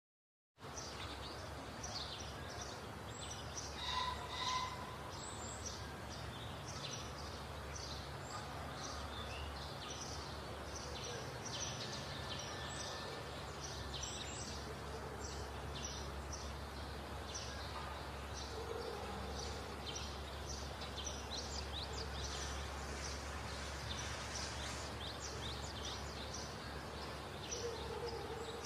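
Outdoor ambience: many small birds chirping and calling over a steady low background rumble.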